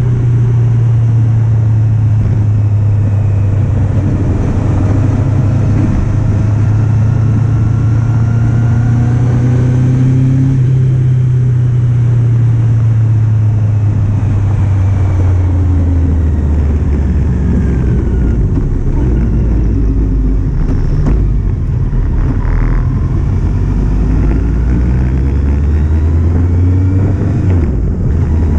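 Kawasaki Z750 inline-four engine running while the motorcycle is ridden, its note steady and then dropping in pitch about halfway through as the revs fall.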